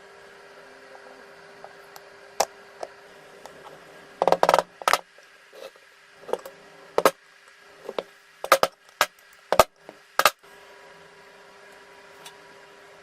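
About a dozen sharp clicks and knocks of parts and hand tools being handled and set down on a workbench, several in quick pairs and bunched together through the middle, over a faint steady hum.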